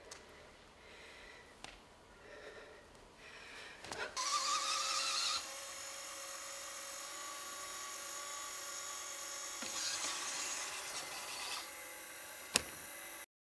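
Electronic drone of several steady whining tones entering suddenly about four seconds in, with a short rising tone at its start; it drops a step in level about a second later, holds, and cuts off abruptly just after a sharp click near the end.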